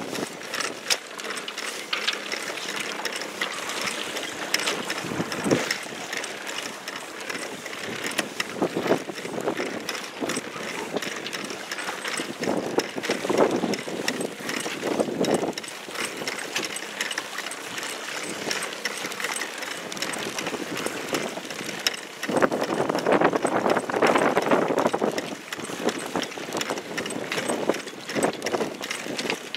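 Choppy water splashing and slapping against a small inflatable boat's hull as it moves, with wind on the microphone; the splashing surges louder twice, about halfway through and again a few seconds later.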